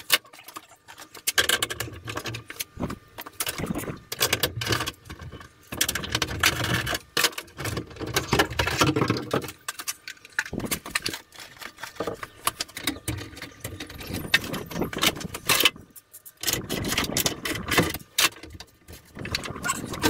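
Irregular clicks, rattles and knocks of metal parts and hardware being handled while a soft-starter chassis is worked on and lifted about in its electrical enclosure.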